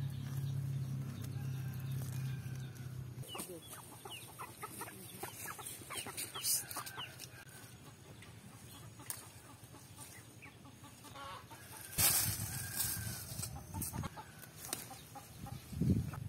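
Chickens clucking in short repeated calls. A low steady hum runs through the first three seconds, and there is a brief loud noisy burst about twelve seconds in.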